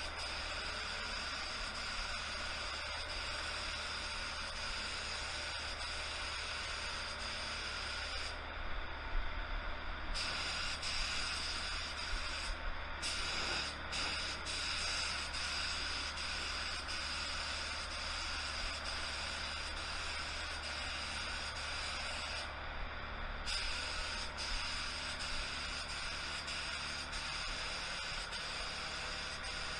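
ITALCO Shine 1 1.3 mm HVLP gravity-feed spray gun spraying paint: a steady hiss of air and atomised paint. The hiss cuts out briefly when the trigger is let go, about 8 seconds in, twice around 13 seconds, and near 23 seconds. A low steady hum runs underneath.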